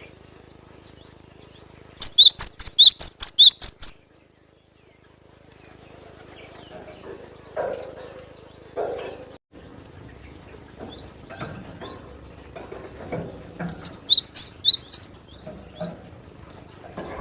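Cinereous tit (gelatik batu) calling: runs of sharp, high, rapid chirps lasting about two seconds each, one run soon after the start and another late on. Fainter chirping comes in between.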